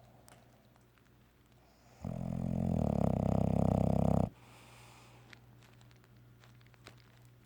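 Bulldog snoring in its sleep: one long snore about two seconds in, lasting about two seconds and cutting off abruptly, with quiet between snores.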